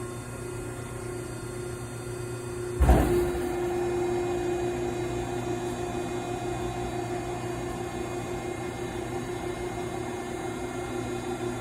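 Wastequip 6030XHD vertical cardboard baler's 15 hp three-phase electric motor and hydraulic pump running with a steady hum. A sudden clunk comes about three seconds in, and after it the hum is a little louder.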